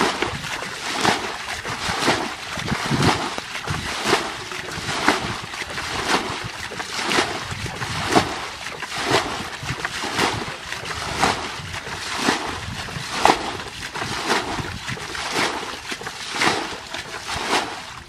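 Muddy water being bailed out of a shallow ditch with a plastic bucket: repeated scoop-and-throw splashes, about one a second, each followed by water sloshing and spattering down.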